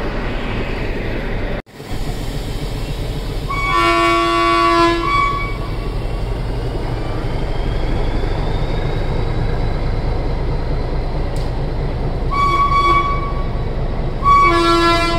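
Nilgiri Mountain Railway toy train sounding its horn: one long blast of about two seconds, then two short blasts near the end, over a steady low rumble.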